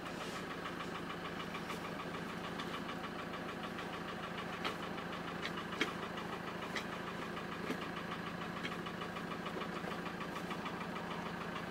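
Santana PS10's 2.8 turbo diesel engine idling steadily, heard from inside the cab, with a few faint clicks as the manual gear lever is moved through its gate.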